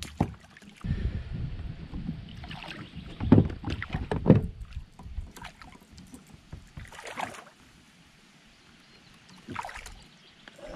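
Handling noise on a fishing kayak: irregular thumps and knocks against the hull with a few sharp clicks, heaviest in the first half and quieter near the end.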